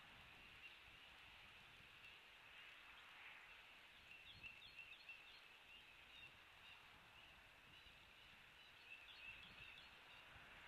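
Faint outdoor ambience with a steady high hiss, broken twice by a short run of quick high chirps from a bird, about four seconds in and again about nine seconds in.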